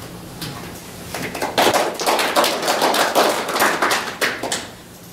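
A small audience applauding. It starts about a second in and dies away shortly before the end.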